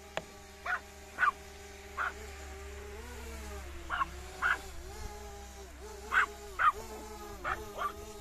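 A small Yorkshire terrier barking in short sharp yaps, about ten of them, often in quick pairs, over the steady whine of a drone's motors, whose pitch dips and rises as it manoeuvres.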